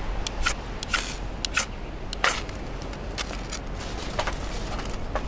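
Irregular sharp clicks and crackles, about a dozen, over steady wind noise on the microphone.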